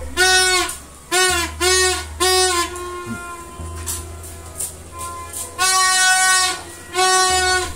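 Plastic toy trumpet blown by a small child: a string of loud toots on the same note, several short ones and one longer blast about six seconds in.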